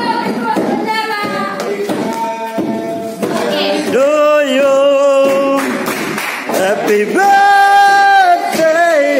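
A group of people singing together without instruments, men's voices prominent, with long held notes about four and seven seconds in.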